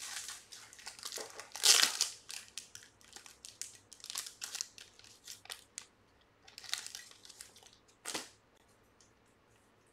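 Plastic wrapping or card sleeves crinkling and rustling as they are handled, in irregular bursts. The loudest comes about two seconds in, and a last short burst about eight seconds in.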